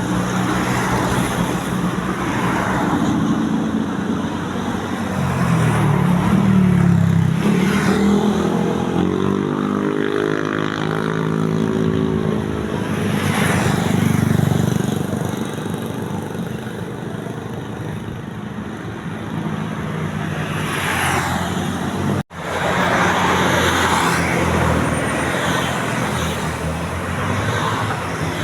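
Roadside traffic: large vehicles such as buses passing one after another, engines running and tyres hissing, each swelling and fading as it goes by. The sound cuts out for an instant about three-quarters of the way through.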